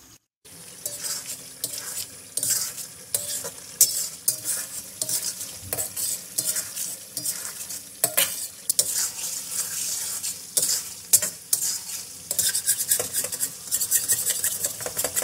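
A metal slotted spatula stirring chicken curry in a metal wok-style pan, with frequent scrapes and clicks against the pan over a steady sizzle of frying.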